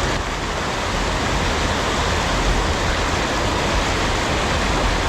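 Steady rushing of creek water flowing over rocks, an even hiss with a low rumble under it.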